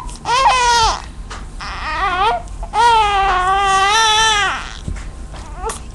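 Young infant crying in wailing bursts, the longest lasting nearly two seconds, a fretful cry that the family puts down to hunger.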